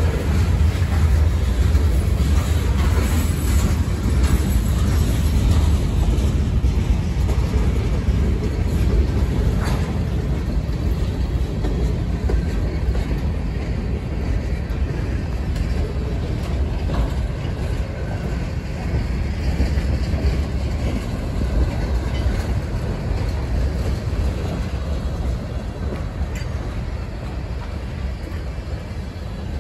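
CSX freight train's cars rolling past at close range: a steady low rumble of steel wheels on the rails, with a few faint clicks, slowly getting quieter toward the end.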